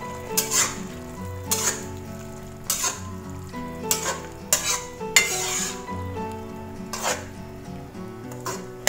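Spatula stirring and scraping through sizzling green beans and sauce in a wok, with about nine strokes roughly once a second and a longer scrape about five seconds in. Background music plays underneath.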